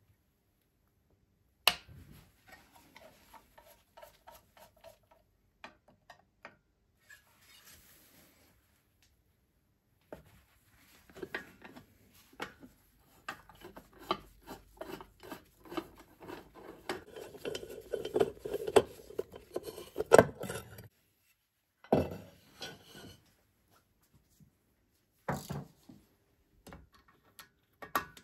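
A screwdriver working the screws of a Csepel 125 engine's aluminium side cover: metal clicks, scraping and clinking of tool on screw and casing. The clinks and scraping are densest in the middle, with a few sharp knocks.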